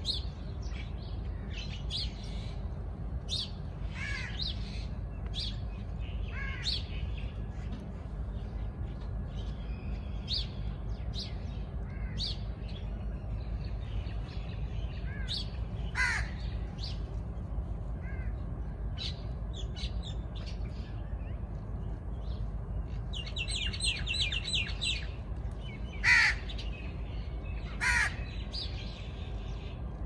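Several wild birds calling: short chirps and calls scattered throughout, a rapid rattling trill about three quarters of the way through, and two loud calls near the end, about two seconds apart. A steady low rumble runs underneath.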